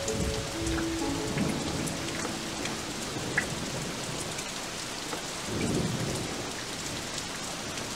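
Steady rain, with low rumbles of thunder, one a little after the start and another swelling about five and a half seconds in.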